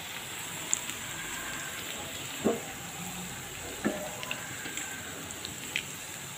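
Poha pakoras deep-frying in hot oil in a black iron kadai, a steady sizzle. A metal spatula knocks against the pan a few times as the fritters are turned, most loudly about two and a half and four seconds in.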